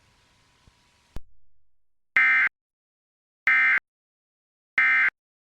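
A sharp click about a second in, then three short, identical EAS digital data bursts (the SAME end-of-message "NNNN" header) about a second and a half apart, signalling the end of the AMBER Alert.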